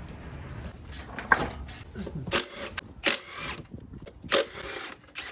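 Tool work on an engine: a low rumble at first, then from about halfway through, several sharp metal knocks and short bursts of tool noise.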